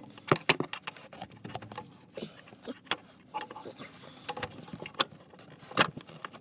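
Scattered clicks and light metal clinks of hand tools being handled, with close handling noise from gloved hands working at a clutch line's flare nut.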